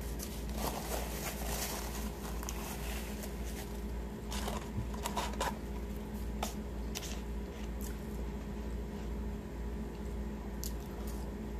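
Close-miked chewing and mouth sounds of someone eating fast-food fries, with paper wrapper crinkling and rustling, densest in the first few seconds and again around the middle. A steady low hum runs underneath.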